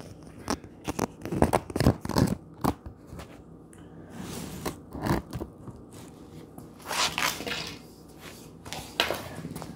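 Irregular knocks, clicks and scrapes of a phone being handled and set down on a concrete floor, followed by a few scraping rasps.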